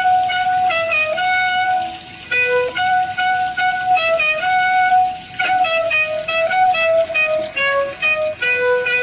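Violin playing a slow melody of long held notes that step up and down in pitch, with a brief quieter low note about two seconds in.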